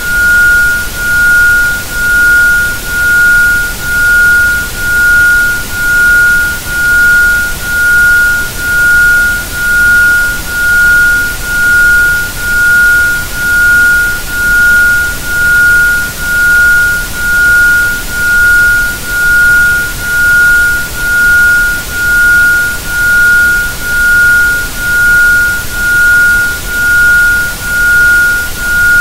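An isochronic tone: a pure sine tone at about 1430 Hz pulsing on and off about once a second (1.05 Hz), over a steady background of broadband noise.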